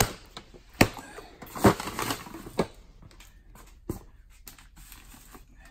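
Rummaging through a pile of cardboard boxes and plastic bags: a handful of sharp knocks and bumps, about a second apart, with rustling as items are shifted.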